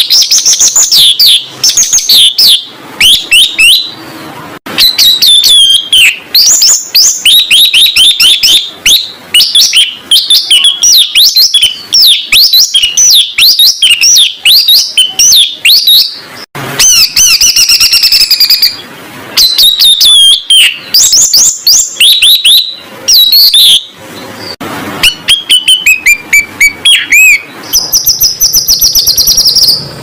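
Recorded songbird song, a dense run of rapid, varied chirps, sweeps and trills with harsh fills, broken by a few short pauses. Near the end a steady, rapid high trill takes over.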